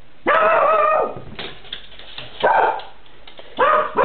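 A cocker spaniel barking three times: the first bark is long and drawn out, and the next two are shorter.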